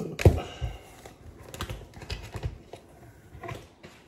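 Uno cards being handled and played onto a countertop: a sharp click just after the start, then a scatter of light taps and clicks.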